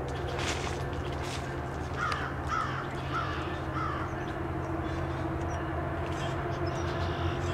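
A crow cawing four times in quick succession, about two seconds in, over the steady low drone of an approaching diesel locomotive working its train up to track speed.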